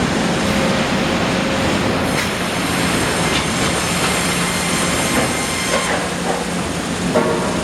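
USNR Sharp Chain twin band saw sawmill line running: a loud, steady mechanical clatter of the chain log feed and band saws, with a few brief higher squeaks in the second half.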